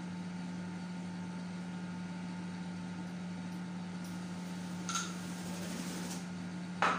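Steady low hum of a running kitchen appliance. Over it, a metal spoon scrapes and taps against the bowl of topping, lightly about five seconds in and with a sharper clink near the end.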